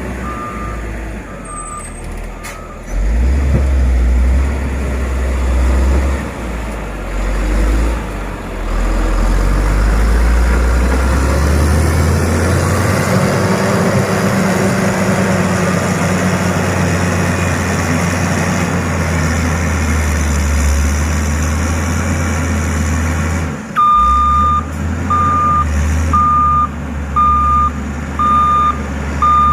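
Heavy road-construction machine's diesel engine running, growing louder about three seconds in. A reversing alarm beeps steadily at the very start and again through the last five or so seconds.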